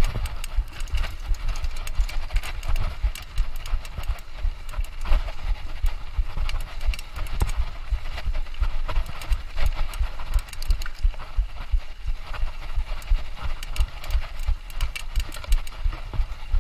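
Mountain bike ridden fast over rough trail: constant irregular rattling and knocking of the bike over bumps, over a choppy low rumble.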